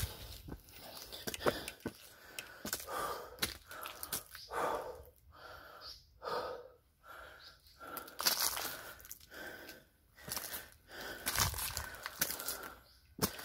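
A man breathing hard in quick, even breaths while climbing steep stone steps, with the scuff and crunch of his footsteps on dry leaves.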